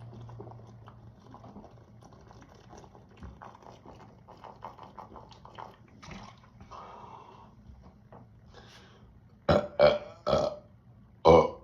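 A man belching after chugging carbonated soda: faint gulps and clicks for most of the time, then four short, loud burps in quick succession near the end.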